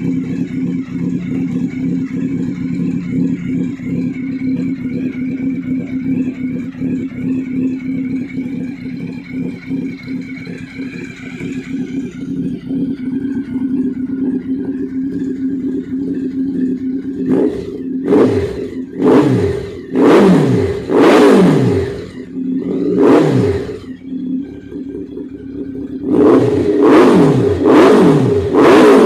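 Honda CB1300's inline-four engine breathing through dual SC-Project exhausts, idling steadily and then blipped by hand: about six quick revs that fall straight back to idle, a short pause, then four more in quick succession near the end.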